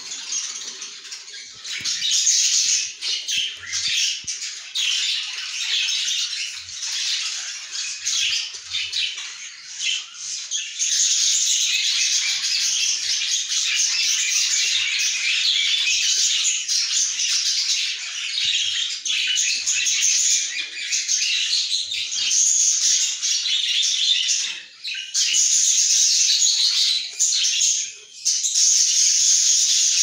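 Budgerigars in a nest box, a hen with her chicks, keep up a continuous high-pitched, raspy chatter of squawks and chirps. It grows denser and steadier about a third of the way in and briefly drops out twice near the end.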